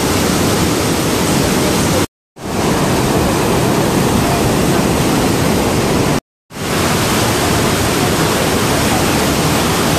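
Loud, steady rush of the Rhine Falls' water plunging close up, a dense roar of falling water. It cuts out to silence twice, briefly, about two and six seconds in, fading back in each time.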